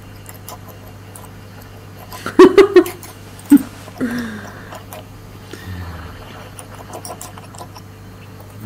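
A few short bursts of laughter, three or four in quick succession about two and a half seconds in, then two more near three and a half and four seconds, over a low steady hum and faint clicks.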